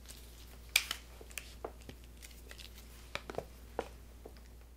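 Faint scattered clicks and rustles of a flexible gooseneck tablet-holder arm (the MonkeyTail) being bent and coiled up by hand, with one sharper click a little under a second in.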